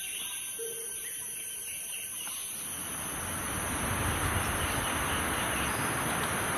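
Outdoor ambience: a steady high insect drone with a faint bird note early on. About a third of the way in, a broad rushing noise, like wind through leaves, swells up and stays.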